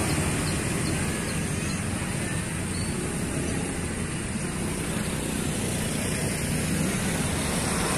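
Small motor scooter engines running close by as scooters pull out of a gateway and ride off along the road. The engine noise dips through the middle and builds again near the end.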